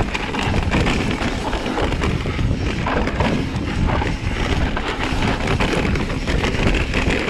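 Mountain bike descending a rough dirt singletrack: wind buffeting the microphone, with irregular knocks and rattle from the tyres and bike over the ruts.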